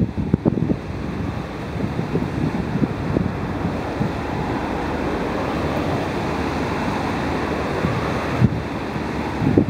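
Wind buffeting the microphone in irregular low gusts, strongest near the start, over a steady rushing hiss that fills the middle stretch.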